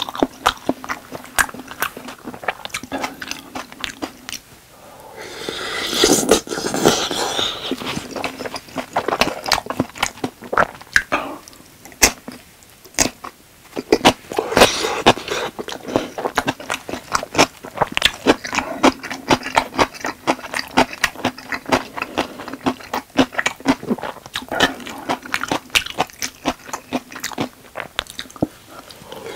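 Close-miked chewing and wet mouth clicks from eating chewy spicy rice cakes (tteokbokki), with crunchy bites of pickled radish. A longer slurping sound comes about six seconds in.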